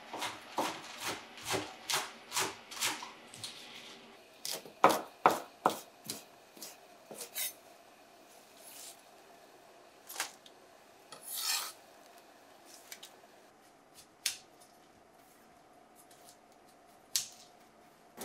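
Kitchen knife slicing broccoli leaves into thin strips on a wooden cutting board: a run of regular strokes about two a second, a quick cluster of cuts around five seconds in, then sparser single cuts.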